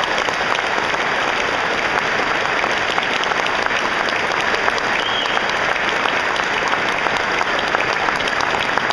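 Sustained applause from a large seated audience, many hands clapping at once, holding steady at the same level throughout.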